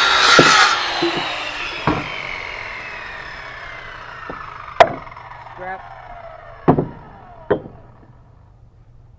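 Circular saw finishing a cut through a wooden board, then its blade spinning down with a falling whine that fades over several seconds. Several sharp wooden knocks, the loudest about five seconds in, come as the boards are handled.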